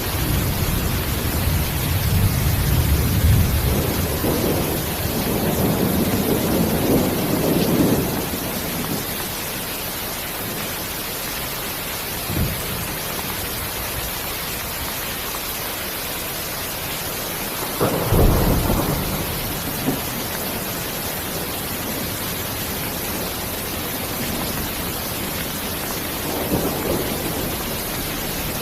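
Steady rain hiss with rolls of low thunder: a long rumble over the first several seconds, a short one about twelve seconds in, a sharper roll around eighteen seconds in, and a fainter one near the end.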